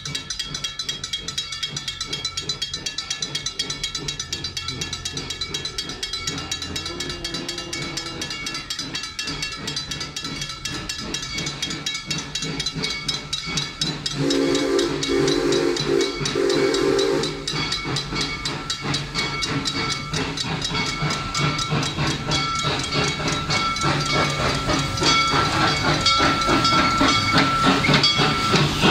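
Railroad crossing bell ringing rapidly and steadily while the signals flash and the gates are down. About halfway through, an approaching locomotive sounds a chime whistle of several notes for about three seconds. Near the end the train draws close, with a rising hiss.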